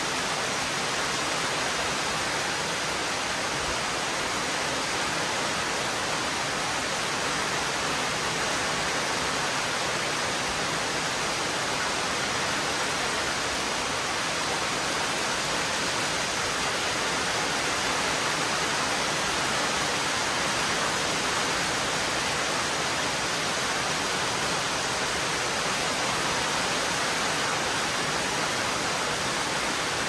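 Heavy rain pouring steadily, a dense, even hiss with no thunderclaps.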